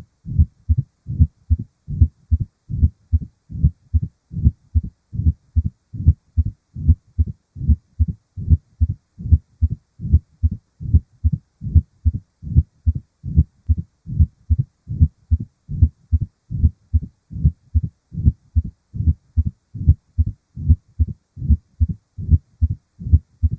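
Heart sounds of mitral stenosis, a narrowed mitral valve: a regular, low-pitched heartbeat repeating steadily.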